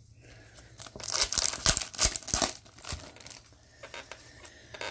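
A foil hockey card pack wrapper being torn open and crinkled by hand, a burst of crackling from about one to three seconds in, then lighter rustling.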